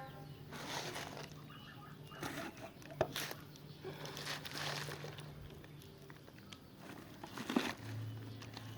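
Faint rustling and crinkling handling noises with a few light clicks, over a low steady hum that drops in pitch near the end.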